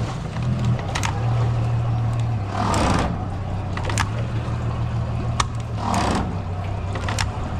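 A motor running steadily with a low hum, with a few sharp clicks and two brief rushing swells over it.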